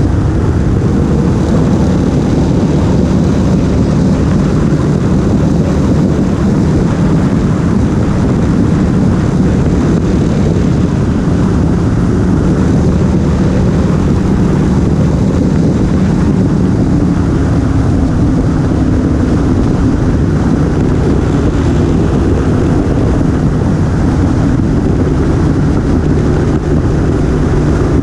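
Motorcycle engine running steadily at cruising speed, its tone drifting slightly through the bends, with wind rushing over the microphone.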